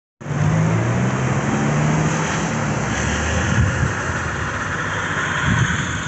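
Street traffic: a car engine hum close by, then steady road noise after about two and a half seconds.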